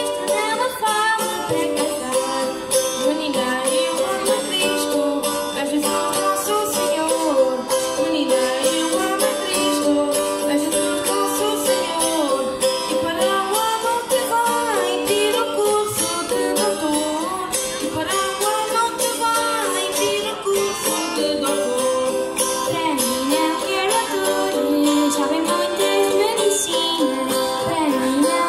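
Folk group performing traditional Madeiran music: voices singing a melody together over steadily strummed small guitars.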